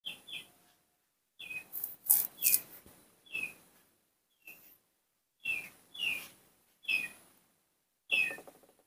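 A series of short, high chirps, each falling in pitch, coming singly or in quick pairs about once a second.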